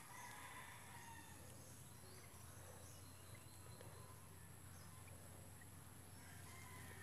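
Near silence: faint outdoor background, with a faint distant bird call in the first second.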